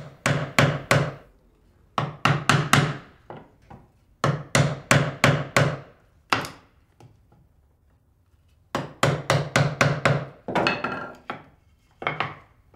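Mallet striking a chisel to chop out the waste between dovetails in a board's end. The sharp wooden knocks come in quick bursts of three to six strikes, separated by short pauses.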